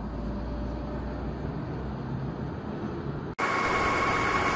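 Steady low outdoor rumble, then an abrupt cut about three and a half seconds in to a louder steady roar with a high steady tone held over it.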